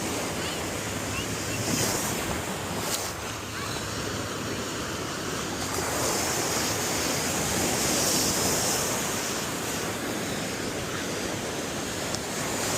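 Ocean surf: waves washing and breaking, swelling louder about halfway through, with wind buffeting the microphone.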